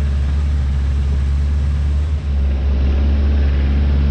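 Engine of an open passenger-carrying vehicle running steadily on a dirt track, a loud low drone with even road and wind noise over it and a brief dip about two seconds in.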